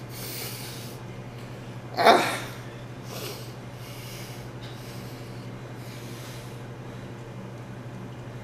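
A person's loud, short breathy outburst about two seconds in, then a few softer breaths, over a steady low electrical hum.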